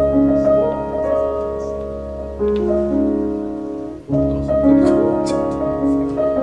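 Background piano music: a gentle melody of held notes over a steady accompaniment.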